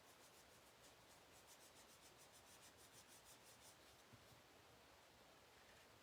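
Faint scratching of a Stampin' Blends alcohol marker colouring on cardstock in quick back-and-forth strokes, about seven a second, stopping about four seconds in. A light tap follows just after.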